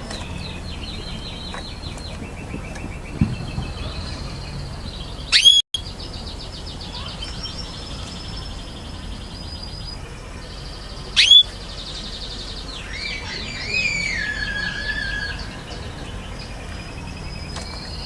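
Domestic canaries singing in fast rolling trills and rattles, with two loud, sharp upward-sweeping chirps, one about five seconds in and one about eleven seconds in.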